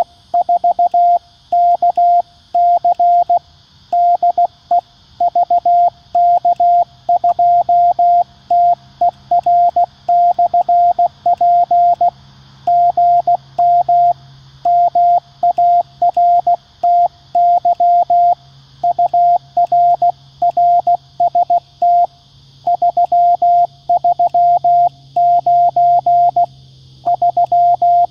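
Morse code sidetone from a QCX-mini CW transceiver: a single steady pitch keyed into dots and dashes at about 16 words per minute as the operator sends 'VK4KC de VK2TER/P', then 'GM Marty ur RST 339'.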